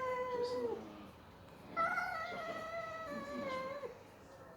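Domestic cat yowling in a fight: a drawn-out yowl trails off in the first second, then a second long yowl of about two seconds follows, slowly falling in pitch and breaking off abruptly.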